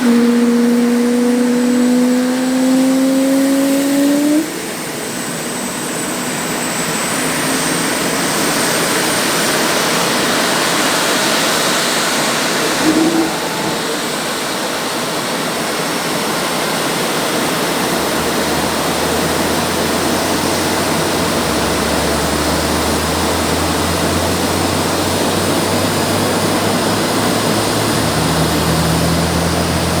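Jet engines of Boeing F/A-18 Super Hornets running: a steady rushing jet noise, with a rising whine that cuts off about four seconds in.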